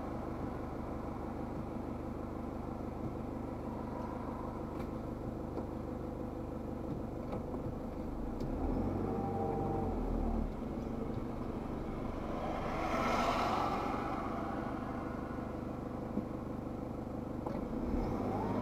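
Car engine idling and pulling forward at low speed, heard from inside the cabin, with a stronger low rumble about halfway through as it moves off. About two-thirds of the way in, another vehicle swells past and fades.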